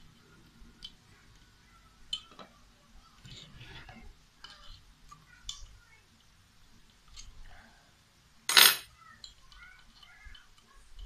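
Small hand tools clicking and scraping against a cast carburetor body while a stuck jet is being worked loose, with one loud, sharp metallic clatter about eight and a half seconds in.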